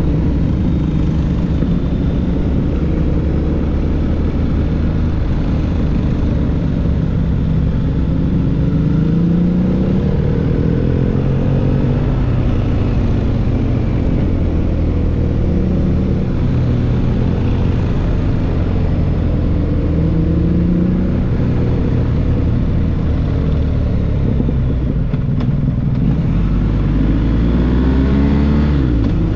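BMW R1250GS boxer-twin engine running through an SC-Project SC1-R GT exhaust while riding. The pitch climbs and drops back several times as the bike accelerates and shifts through the gears.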